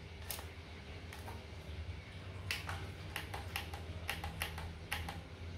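A scatter of light, sharp clicks at an irregular pace, most of them bunched in the second half, over a faint low steady hum.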